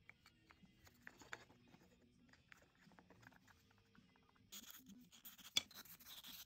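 Faint clicks and taps of small wooden toy-car parts being handled and fitted together, then, from about four and a half seconds in, the scratchy rubbing of a sanding stick on the wood, with one sharp click partway through.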